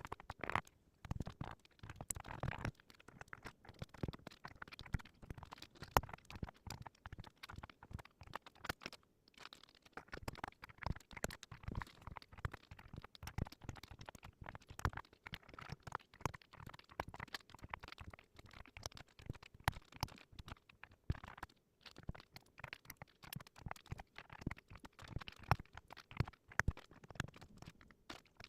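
Typing on a Zuoya GMK67 mechanical keyboard fitted with Haimu Midnight switches and Apple-style keycaps: a steady run of quick, uneven keystroke clacks, several a second.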